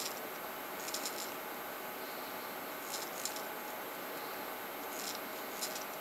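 Recirculating steel balls rattling and clicking inside a 3D-printed plastic ballnut as it is turned by hand on a 16 mm trapezoidal lead screw. The clicks come in three short clusters, roughly two seconds apart.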